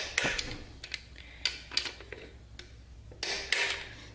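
Hand socket ratchet clicking as the bolts of a TH400 transmission's oil pump are run down into the case: a few separate clicks, then a quicker run of ratcheting about three seconds in.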